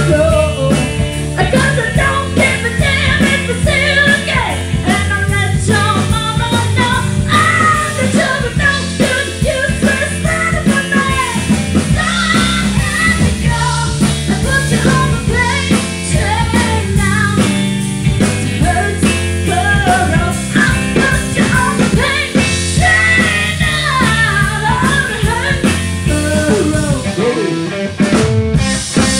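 Live rock band playing: a woman sings over electric guitars, bass and a drum kit.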